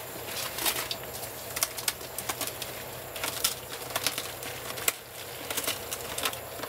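Northern tamandua clawing and tearing at a termite nest: irregular crackling, scratching and snapping of the nest material, with one sharper snap about five seconds in.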